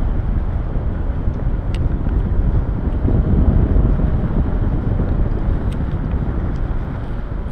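Airflow buffeting the microphone of a camera on a paraglider in flight: a steady, deep rumble of wind noise, with no engine tone.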